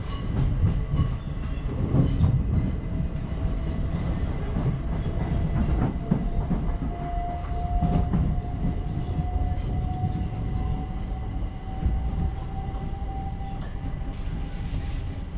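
Commuter train running along the track, heard from inside the carriage: a steady rumble with scattered clicks from the rails and a faint whine that slowly rises in pitch.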